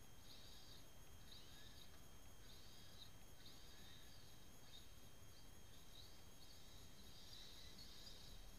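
Near silence: faint outdoor ambience with soft, short high-pitched chirps repeating about once a second.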